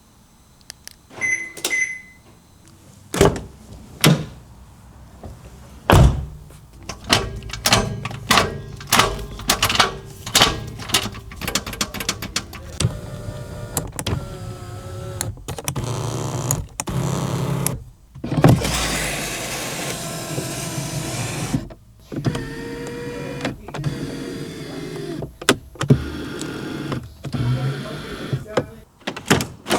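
BMW E39 M5's power windows and other cabin electrics being worked: a short chime near the start, a quick series of clicks and thunks from switches and locks, then several longer stretches of electric motors whirring as the windows move.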